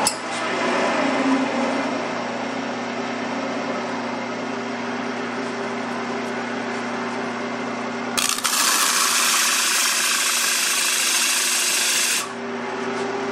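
Wood lathe running with a steady motor hum as a bowl spins on it. About eight seconds in, a flat sanding block is pressed against the spinning bowl's rim, adding a loud hissing scrape for about four seconds that stops abruptly: the rim is being sanded perfectly flat so the bowl halves will glue together tightly.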